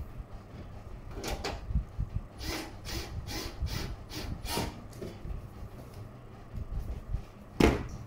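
Handling sounds of PC-building work: a scatter of light clicks and knocks, then one louder knock near the end as a cordless screwdriver is set down on the motherboard box.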